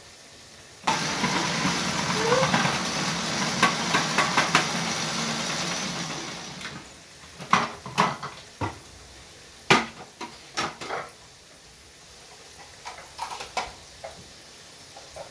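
Food-processor attachment on a stand mixer running as it chops an onion: the motor starts suddenly about a second in, runs steadily for about five seconds, then winds down. After it stops come a series of sharp plastic knocks and clicks as the bowl is taken off the machine.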